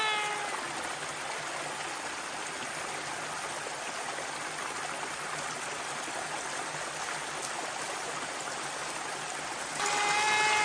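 A small stream cascading over rocks runs with a steady rush of water. A cat's meow fades out in the first half second, and near the end a cat gives a long meow held at an even pitch.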